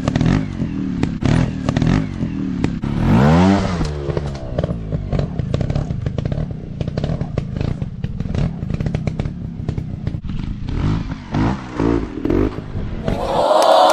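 Off-road trail motorcycle engine running and revving. It rises and falls sharply in pitch about three seconds in and gives a few shorter blips near the end, over a steady clatter of sharp clicks.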